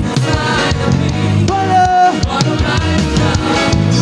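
Live gospel praise music: a band playing with singers, a held sung note near the middle, over a steady drum beat.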